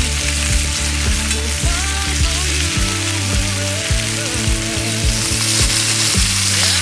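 Meat frying in a pan, sizzling steadily, over background music.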